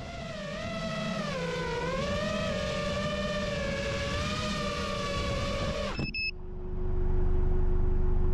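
FPV quadcopter's motors and propellers whining at low throttle, the pitch wavering slightly. About six seconds in the whine cuts off abruptly as the drone is disarmed, followed by a short beep; a steady low hum with a faint tone is left after it.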